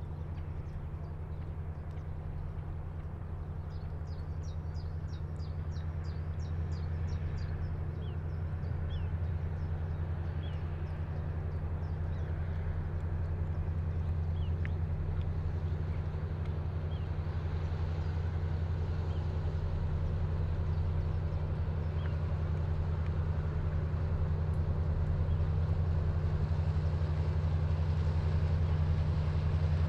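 Low, steady engine drone of a ship on the river, growing slowly louder as it approaches. Over it, a bird calls in a quick series of short chirps a few seconds in, with a few scattered calls later.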